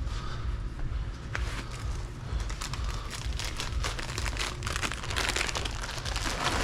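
Plastic snack bags crinkling as they are handled, with irregular crackles that get busier near the end, over a steady low rumble.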